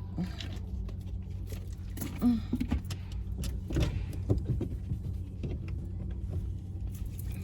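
Car interior noise while driving: a steady low engine and road hum, with a few short knocks and clicks between about two and four seconds in.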